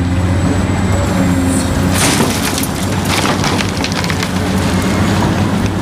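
Heavy hydraulic excavator's diesel engine running steadily. From about two seconds in, earth and stones clatter and rattle as the bucket digs and dumps.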